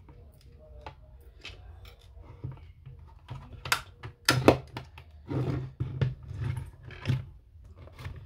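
Hand tools and parts of an Apple Time Capsule being worked during disassembly: a run of clicks, knocks and short scraping sounds, loudest about four and a half seconds in.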